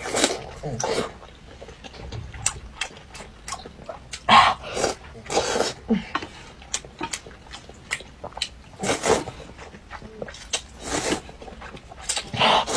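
A person slurping noodles from a bowl of spicy broth, in a series of noisy slurps at irregular intervals, with mouth and chewing sounds between them.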